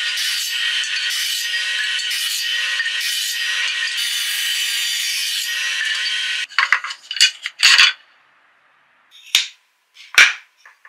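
Mini benchtop table saw running and ripping a thin wooden strip: a steady high whine with cutting noise that stops abruptly about six and a half seconds in. Then come a quick run of clattering knocks and two sharp taps near the end as cut wooden strips are handled and set down.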